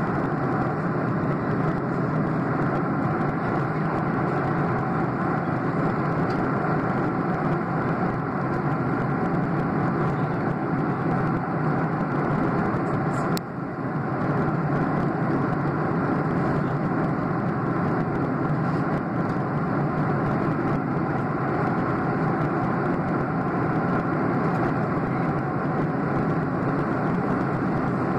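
Jet airliner cabin noise in flight: the steady, even rush of the engines and airflow, heard from inside the cabin at a window seat over the wing. One brief click and dip in the sound comes about halfway through.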